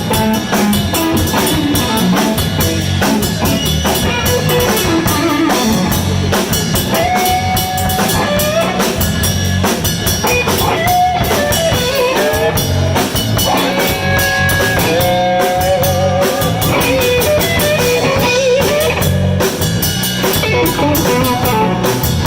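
Live blues band playing an instrumental break between verses: a guitar lead with bent, sliding notes over drum kit and bass guitar.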